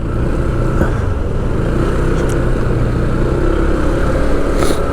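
A vehicle engine running steadily at close range, a continuous low hum with a brief hiss near the end.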